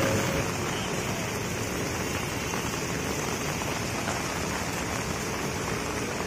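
Steady rain falling on paving and the street, an even hiss with no distinct drops or strokes.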